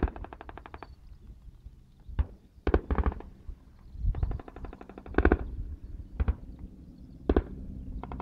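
Gunfire: two rapid machine-gun bursts of about a second each, one at the start and one about four seconds in, with about six single rifle shots scattered between.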